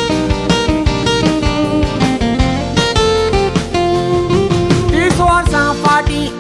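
Song music with guitar over bass and drums keeping a steady beat. About five seconds in, a sliding melody line enters on top.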